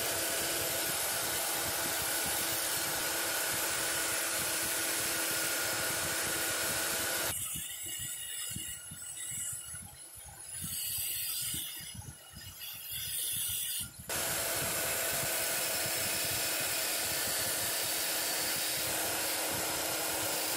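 Benchtop belt sander running with a steady motor whine and belt noise as the cut edges of a sheet-metal drive-bay cage are sanded smooth on it. About seven seconds in the noise drops abruptly to a quieter, uneven sound, and the full steady running noise comes back about seven seconds later.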